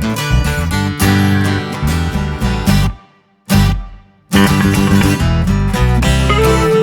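Background music with plucked and strummed acoustic guitar. It drops out briefly twice about halfway through.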